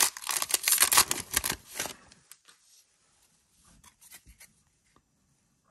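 Plastic wrapper of a Donruss football card pack being torn open, a crackling rip and crinkle lasting about two seconds, followed by faint rustling as the cards are handled.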